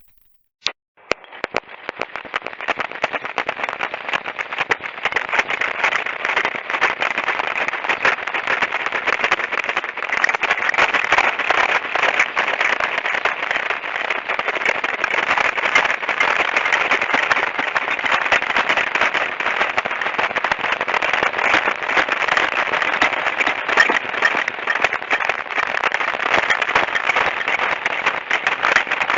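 A dense, steady crackle of many rapid small clicks that builds up over the first few seconds and then holds steady.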